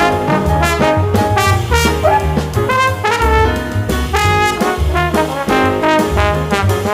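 Background music: a jazzy brass band tune with trumpets and trombones over a steady bass beat.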